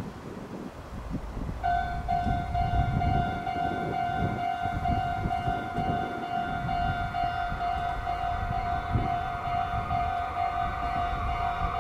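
Railway level-crossing warning bell starts ringing about a second and a half in and keeps up a steady repeated tone, with wind buffeting the microphone. A rushing noise builds near the end.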